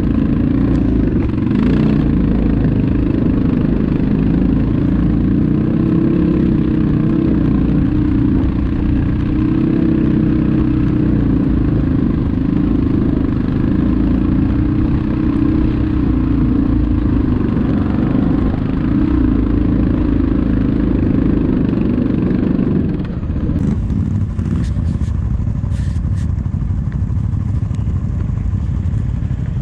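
ATV engine running under load on a trail, its pitch rising and falling with the throttle. About three-quarters of the way through, the engine note drops away to a lower, rougher rumble, with a few sharp knocks.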